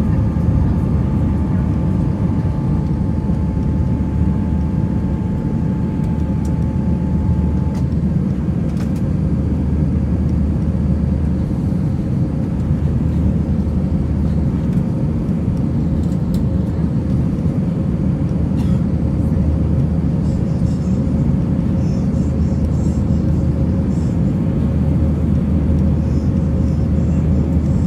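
Steady, loud roar of jet engines and airflow inside an Airbus A319 cabin, with a steady hum running through it. A higher whine fades out about eight seconds in.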